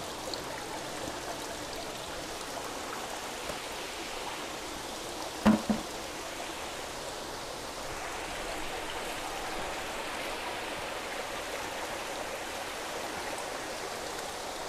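Steady splashing and trickling of water from the overflow pipes of a recirculating fish-hatchery system pouring into water-filled vats and barrels. About five and a half seconds in there is a brief double knock.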